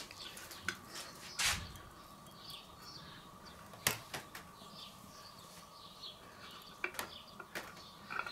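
A few light clicks and knocks of a steel pan being shifted on the metal grate of a charcoal kettle grill, the sharpest about four seconds in, over faint bird chirps.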